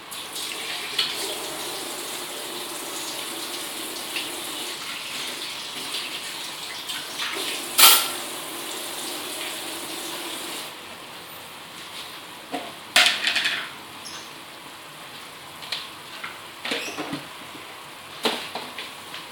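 Mushrooms and meatballs sizzling in a steel wok over a gas flame, with a metal spatula scraping and clanking against the wok. A steady hiss for about the first ten seconds, then quieter with scattered knocks; the loudest clank comes about eight seconds in.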